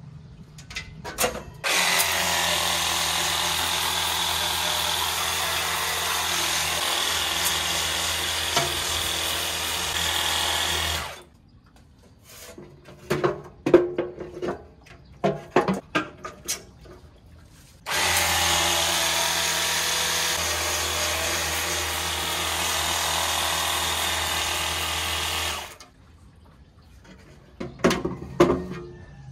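A small electric motor runs steadily for about nine seconds, stops, then runs again for about eight seconds. In the gap and near the end, the sheet-metal parts of a portable charcoal grill knock and clatter as they are handled.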